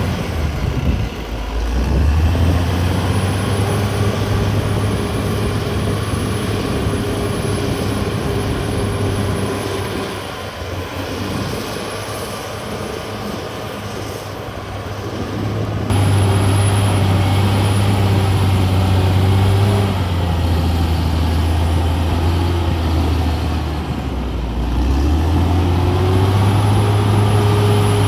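Caterpillar D6R XL bulldozer's diesel engine running hard while working, its note sagging and picking back up twice. The sound changes abruptly about halfway through.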